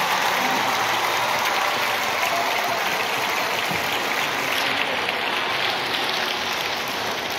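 Steady applause from a large crowd of children in a big reverberant hall, a dense even patter that eases slightly in the second half.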